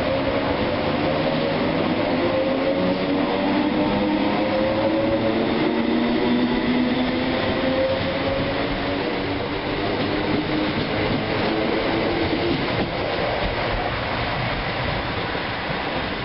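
Class 321 electric multiple unit accelerating away, its traction motors whining in several tones that slowly rise in pitch over the first half, over a steady rumble of wheels on rail. The whine then fades into the running rumble as the train draws away.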